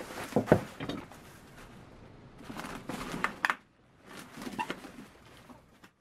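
Dry broom straw rustling and creaking in the hands as a hand broom is bound and stitched, with sharp clicks and knocks, the loudest about half a second in.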